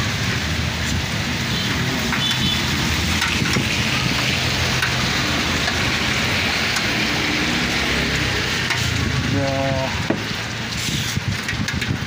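A steady crackling hiss with a low hum underneath, and a brief pitched sound about nine and a half seconds in.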